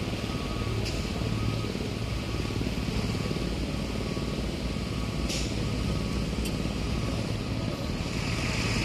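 Steady low drone of a large ro-ro ferry's diesel engines running as it manoeuvres slowly alongside the quay to berth, with a few faint ticks.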